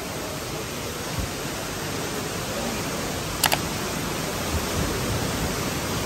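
Steady rushing of river water and a waterfall, an even hiss, with a brief double click about three and a half seconds in.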